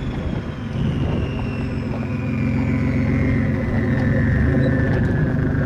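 Turbocharged Toyota 4Runner's 3.4-litre 5VZ-FE V6 running steadily while crawling off-road, with a high whine that slowly falls in pitch.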